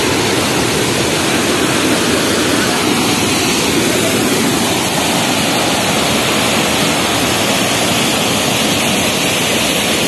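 Waterfall rushing steadily: an even, unbroken wash of falling water over rock.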